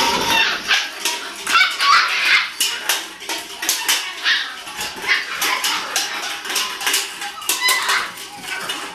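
A litter of five-week-old Malinois and Dutch Shepherd puppies yapping and yelping in high voices, excited as they jump at a toy dangled for their first bite session, with many short clicks mixed in.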